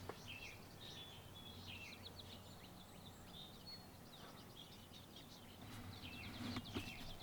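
Small songbirds chirping faintly, short high notes scattered throughout, with a quick trill of repeated notes near the end.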